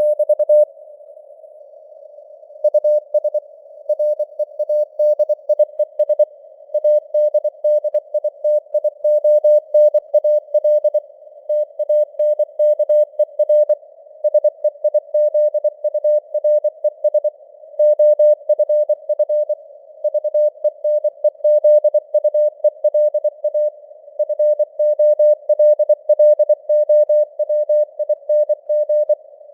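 Morse code (CW) sent as a single keyed tone at about 24 words per minute, spelling out news headlines. It plays in a thin bed of simulated radio noise, with a brief pause about two seconds in.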